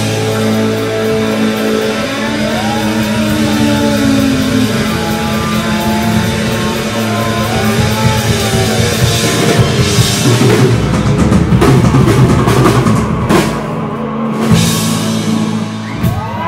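Live rock band playing an instrumental passage on electric guitars, bass guitar and drum kit, with no vocals. The drumming turns busy about ten seconds in, with a run of fills and cymbal crashes.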